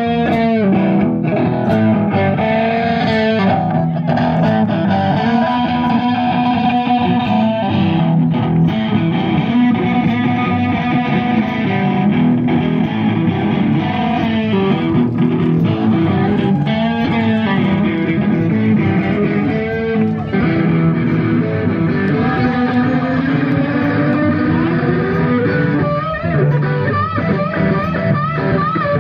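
Electric blues guitar solo on a Stratocaster-style electric guitar through an amplifier, full of bent notes, over bass guitar and drums, with no singing.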